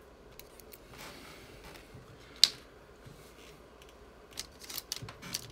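Small clicks of alligator clip leads and a diode being handled and unclipped on a bench, with one sharp click about two and a half seconds in and a quick run of clicks near the end.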